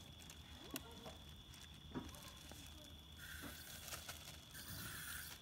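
Wood campfire burning in a block fire pit, crackling faintly with a few sharp pops, over a faint steady high-pitched tone.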